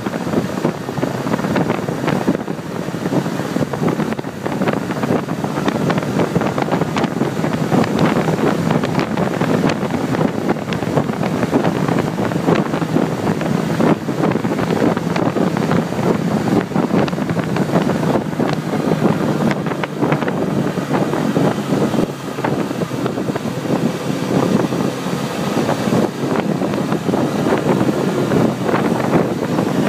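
Wind buffeting and rushing over a hand-held phone's microphone on a motorcycle moving at road speed.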